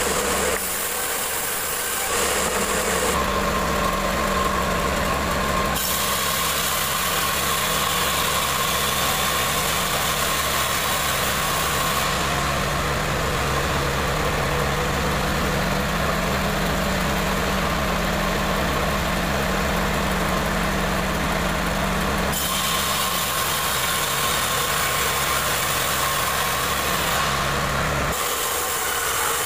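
Sawmill machinery running steadily, a continuous engine-like drone with a low hum. The tone shifts abruptly a few times.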